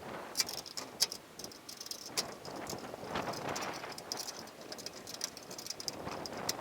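Irregular clicks and knocks over rustling: a camera being handled and set in place.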